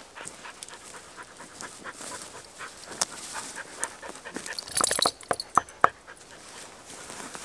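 A dog panting close by, with rustling through undergrowth. About five seconds in, three sharp knocks of knuckles on a fallen aspen log, testing the wood for rot; it sounds solid.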